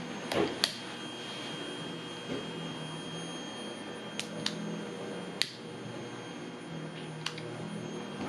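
Hochiki residential fire alarm giving its low-battery warning: a few short, faint, high-pitched chirps at irregular moments over a quiet room, the sign that its battery is dead.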